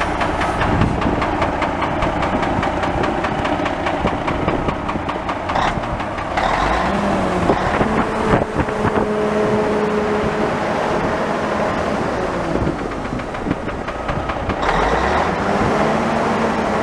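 Caterpillar 3406B inline-six diesel engine of an International F-9370 dump truck idling with an even, rapid beat. The seller lists this engine as one that knocks and smokes.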